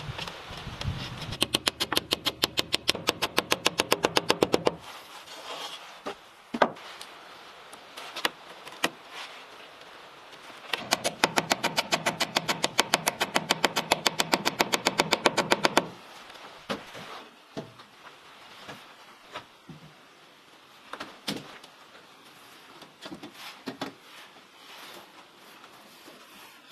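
A tool runs in two bursts of rapid, even clattering strokes, about eight to ten a second, the second burst longer, followed by scattered single knocks and taps.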